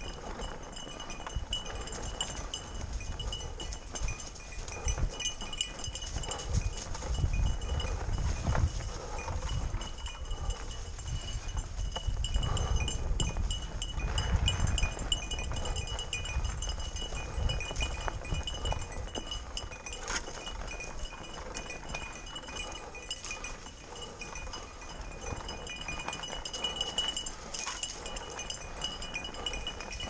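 Fat bike ridden over a rocky dirt trail: rumbling thumps and short rattles as the tyres roll over stones, heaviest around a quarter and half way through, over a steady high thin ringing.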